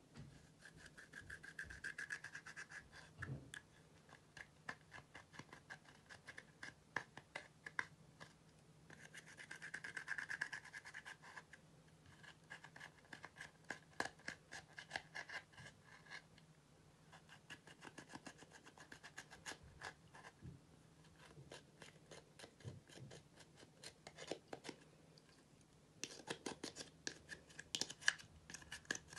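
Metal-tipped tool scratching and scraping pressed eyeshadow out of a palette's pans, in quick, faint scratching strokes that come in spells with short pauses.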